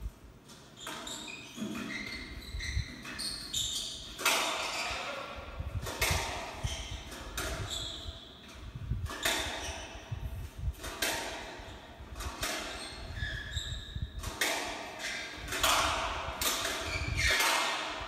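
Squash doubles rally heard through a television: the ball smacking off rackets and walls every second or two, with sneakers squeaking on the wooden court floor between shots.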